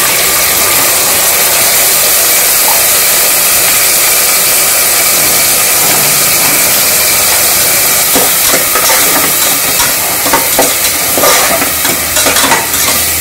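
Wet ground mint-coriander paste hitting hot oil and onions in an aluminium pressure cooker, giving a loud, steady sizzle. About two-thirds of the way through, stirring with a slotted spatula adds crackles and scrapes over the frying.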